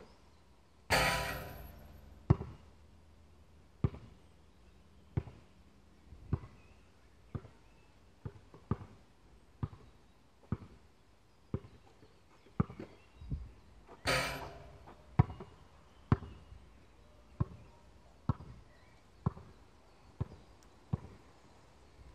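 Basketball bouncing on a hard outdoor court, one dribble roughly every second. Twice, near the start and about two-thirds through, a louder crash dies away over about a second.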